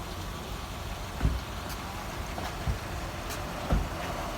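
A ute's engine idling steadily as a low rumble, with three short low thumps about a second or so apart.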